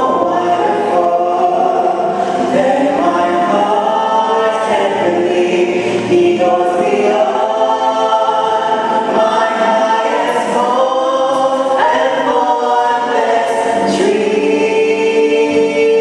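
A choir singing a gospel hymn, settling onto a long held chord near the end.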